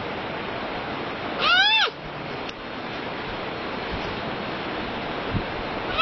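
A panda calling: one short cry, about half a second long, rising then falling in pitch, about a second and a half in. It sits over a steady hiss, and a second, similar cry begins right at the end.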